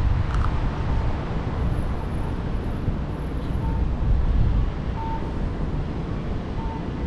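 City street traffic noise, a steady low rumble, with a few faint short beeps now and then.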